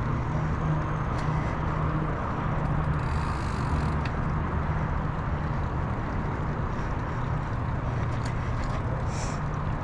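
Mountain bike rolling along a dirt trail: steady wind rush on the microphone and tyre rumble, with a few faint clicks and rattles.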